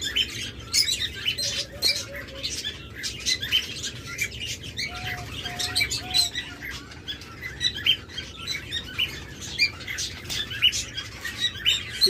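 A chorus of many caged aviary birds chirping, with short high chirps overlapping throughout. A few short low notes stand out, including three in a row about five to six seconds in.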